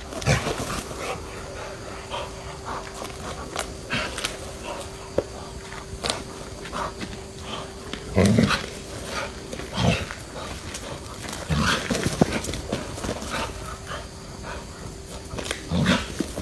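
A dog growling in short bursts as it bites and shakes a snake, with rustling and scuffling in the grass.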